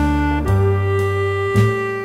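Slow, sad saxophone music: long held notes, moving to a new note about half a second in, over a low bass line.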